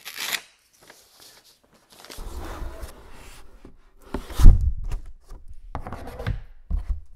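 Paper gift wrapping being cut with a small blade and torn and pulled off a flat boxed frame, rustling and scraping, with a heavy thump about four and a half seconds in and a smaller knock near the end.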